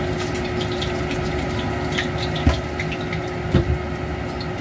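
Cooking oil heating in a stainless steel wok: a steady hiss scattered with small crackles. Two dull knocks come about halfway through and again a second later.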